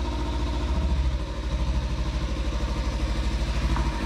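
Fuel-injected parallel-twin engine of a 2013 Kawasaki Ninja 300 idling with an even firing pulse, dipping briefly about a second in.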